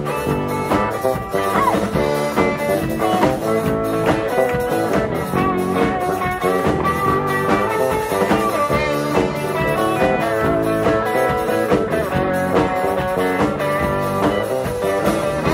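Live pop-rock band playing an instrumental break between sung verses, with no singing.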